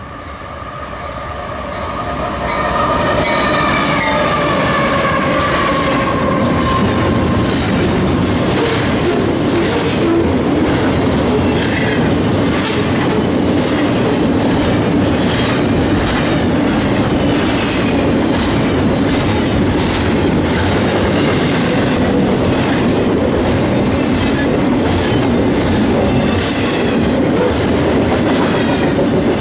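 A diesel-hauled freight train passes at close range. The locomotive's pitched tone falls slowly in pitch as it goes by, and then a long string of double-stack container well cars rolls past with a steady rumble and repeated clacks of wheels over the rail joints.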